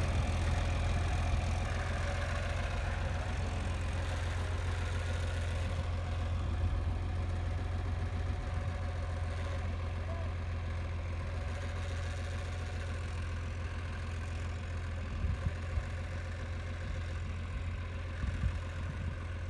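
Farm tractor engine running steadily with a low drone as the tractor drives along carrying a round hay bale on its front loader.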